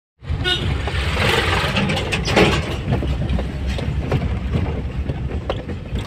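Cabin noise inside a moving Hyundai Santro Xing: a steady low road and engine rumble with scattered short knocks and rattles from under the dashboard, the inside noise that the owner is trying to trace.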